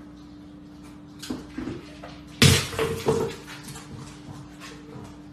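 A dog making short whimpering vocal sounds while eating from a slow-feeder bowl, with a louder, sharper sound about two and a half seconds in.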